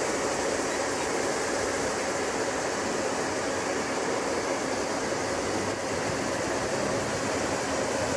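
Steady outdoor ambient noise: an even hiss, strongest in the upper range, with no distinct events.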